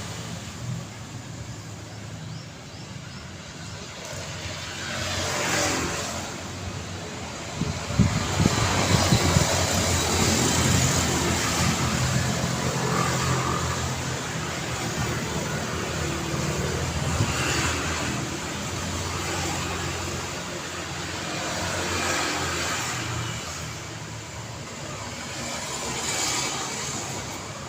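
City road traffic: a steady stream of cars passing, each one swelling and fading, with a heavier engine rumble about eight seconds in.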